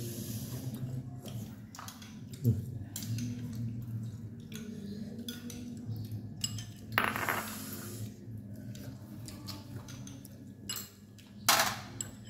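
Spoons and chopsticks clinking against bowls and a steel basin while food is served and eaten, with a sharper knock a couple of seconds in and two short rushing noises later on.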